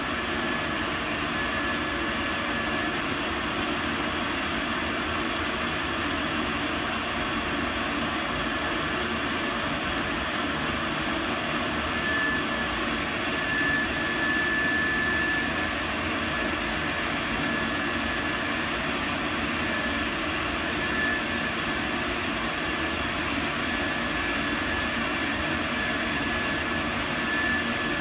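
Laser engraving machine marking a Glock pistol slide: a steady rushing noise with a thin high whine that comes and goes, loudest about halfway through.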